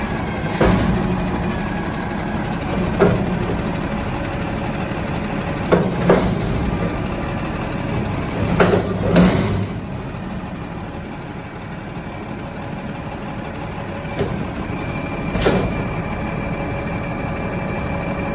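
Front-load garbage truck with a McNeilus body, its engine running steadily while the hydraulic arms tip a steel commercial bin over the cab and then bring it back down. A series of sharp metal bangs and clangs as the bin knocks against the arms and the hopper while it is emptied, most of them in the first half and two more later on.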